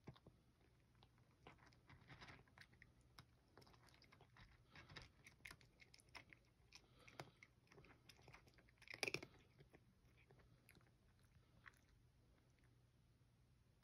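A cat crunching dry kibble: faint, irregular crackling chews, thickest through the middle, with a short louder burst about nine seconds in and sparser crunches near the end.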